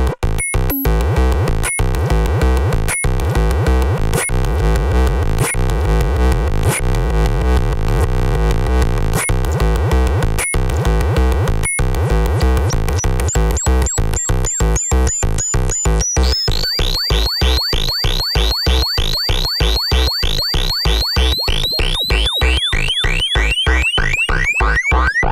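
Arturia MicroBrute monophonic analog synthesizer playing a fast, steady step-sequencer pattern of heavy bass notes, its tone changing as the knobs are turned live. From about halfway through, each note carries a falling high-pitched zap.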